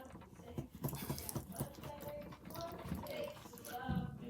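Wet chewing and mouth clicks close to the microphone, irregular and without rhythm, as a mouthful of spicy chicken sandwich is eaten.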